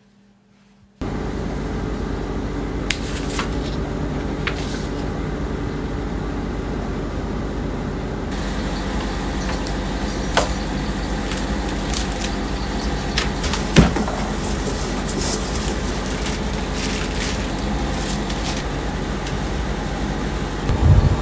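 Near silence for about a second, then a steady background hiss with scattered small clicks and taps from small craft items being handled on a desk, and one sharper knock about two-thirds of the way through.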